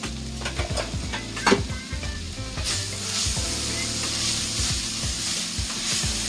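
Chopped vegetables frying in oil and being stirred with a spoon: scraping at first, then a steady sizzle that grows louder about two and a half seconds in.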